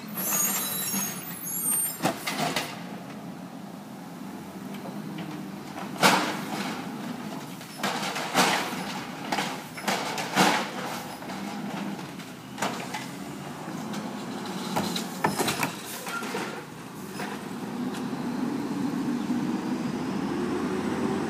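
Garbage truck on its collection route: the diesel engine runs steadily, broken by loud clanks and knocks as bins are handled and emptied. There is a hiss in the first second, and near the end the engine rises in pitch.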